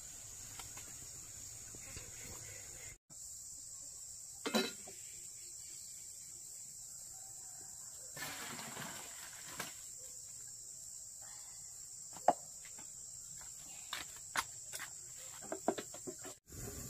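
Steady high-pitched chirring of insects, with scattered clinks and knocks of cookware. About eight seconds in, water pours briefly as boiled bamboo shoots are drained into a colander.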